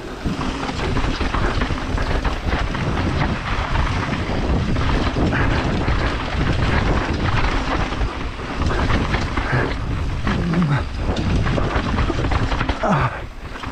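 Wind buffeting a rider-mounted camera's microphone, mixed with the rumble and clatter of a mountain bike descending a dry dirt trail at speed, full of small knocks as it runs over bumps.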